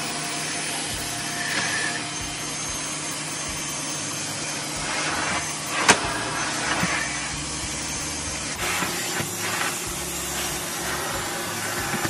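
Nuvac tub-style cylinder vacuum cleaner running steadily with its motor humming and air rushing through the hose. There is a single sharp knock about halfway through.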